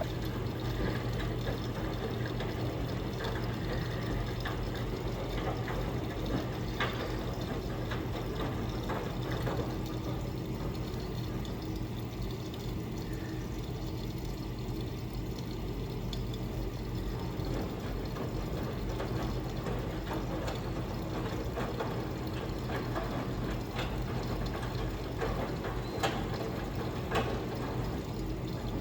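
Miele W1 Professional washing machine in its fabric-softener rinse, water running into the drum over a steady low hum, with a few sharp ticks near the end.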